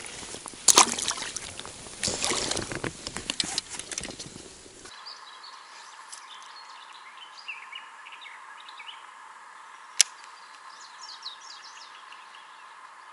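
Water splashing and knocking handling noise as a freshly caught perch is held and unhooked over the water. About five seconds in this gives way to birds singing over a steady hiss, with one sharp click near the end.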